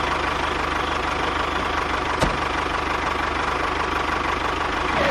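Small engine of a homemade mini tractor running steadily with a fast, even beat just after starting. A single sharp knock comes about two seconds in.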